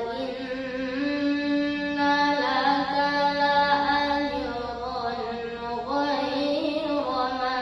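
A boy's voice reciting the Quran in melodic tilawah style, holding long, ornamented notes that waver and glide between pitches. The line moves to a higher pitch about six seconds in.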